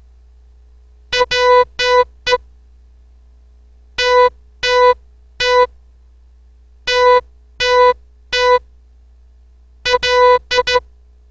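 Morse code practice tones: a buzzy tone keyed on and off in short dots and longer dashes. Four characters are sent one at a time with pauses between them, as a receiving test for copying the code by ear.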